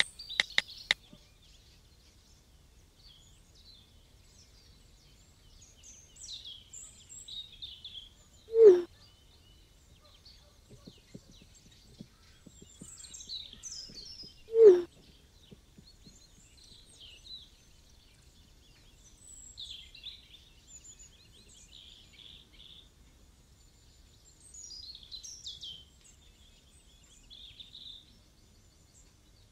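Birds chirping and singing in the background throughout, with two short, loud, low pops of a phone text-message alert about 9 and 15 seconds in. Faint taps of typing on the phone come near the start and just before the second pop.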